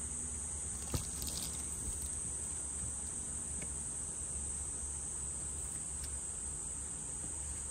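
A portable fridge's lid is opened with one sharp click about a second in, followed by a brief rustle. Under it runs a steady high-pitched chorus of insects.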